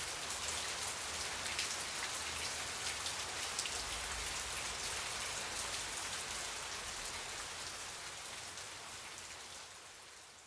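Steady rain, a dense patter of drops, left alone after the music ends and fading out over the last few seconds.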